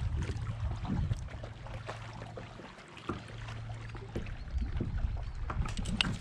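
Wind buffeting the microphone on choppy water, a fluctuating low rumble with light water slapping and scattered small knocks and clicks; the wind eases briefly about halfway through, and a few sharper clicks come near the end.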